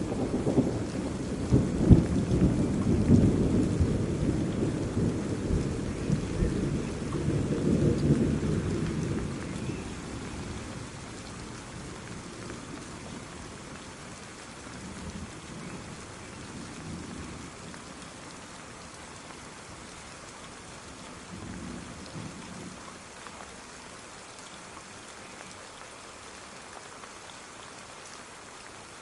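Steady rain hissing, with a long roll of thunder through the first ten seconds or so that dies away. After that the rain goes on alone, with two fainter rumbles later.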